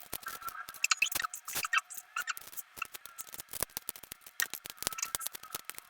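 Quick, irregular clicks and light scrapes of small hand tools working on a smartphone's parts.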